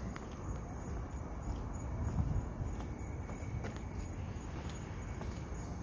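Steady chirring of insects in the woods, with scattered footsteps and rustling in brush as someone walks.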